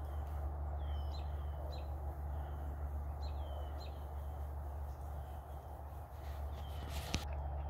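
A bird chirping over and over in short, falling chirps, over a steady low hum. A single sharp click comes near the end.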